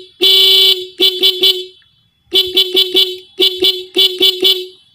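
Yamaha Exciter 150 motorcycle's dual horns, the stock horn and an added cheap small horn wired in parallel, sounding together. One longer blast is followed by quick groups of short toots, a loud tone like a small car's horn.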